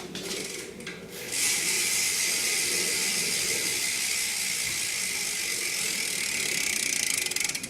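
BMX cassette rear hub freewheeling as the wheel spins: the ratchet pawls click so fast that they blend into a steady, loud buzz, which starts about a second in and cuts off sharply near the end.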